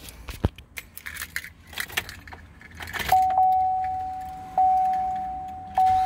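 Car keys jangling and clicking at the ignition of a 2015 Chevrolet Silverado. From about halfway in, the dashboard warning chime dings three times, a little over a second apart, each ding fading away, before the engine is cranked.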